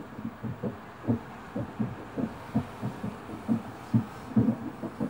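Distant aerial firework shells bursting in a rapid, irregular barrage, heard as dull booms about three a second, from the closing climax of a large fireworks display.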